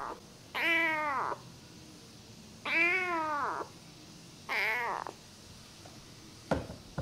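Young ginger-and-white feral kitten meowing three times, each meow under a second and arching up then down in pitch, followed by a short knock near the end.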